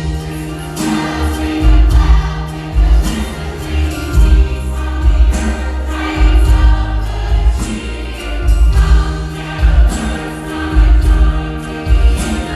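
Music: a choir singing over a band with a steady pulsing bass beat.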